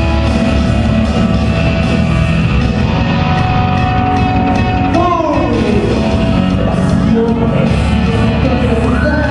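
Loud live rock music with a singer, played through a stage PA. A pitched line slides down about halfway through, and a high held note rises in near the end.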